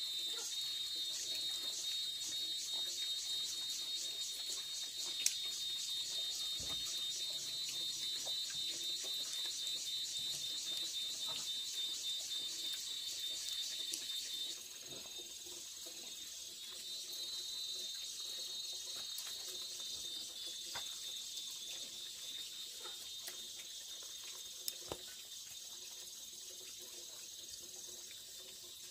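Insects calling in a high, steady chorus with a fast, even pulse. About halfway through it drops in level and breaks into shorter calls with gaps. A few faint ticks and knocks sound underneath.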